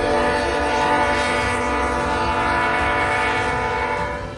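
Train horn sounding one long steady blast of several tones at once, fading away near the end: a warning blast at a railway crossing.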